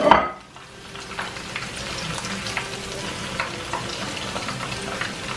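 Whole red snappers frying in hot oil in a wok: a steady sizzle dotted with many small crackles and pops.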